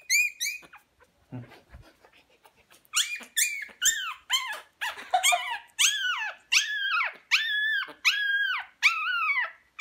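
Young puppy squealing while held up, a few short squeaks at first, then from about three seconds in a rapid run of high-pitched cries, about two a second, each rising and falling in pitch.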